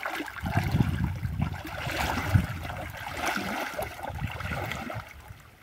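Irregular sloshing and splashing of shallow water.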